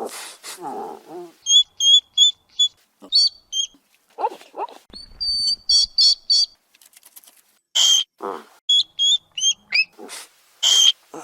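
Hedgehog sounds: a rapid series of short high-pitched squeaks and chirps, some sliding up or down, broken by several brief breathy huffs.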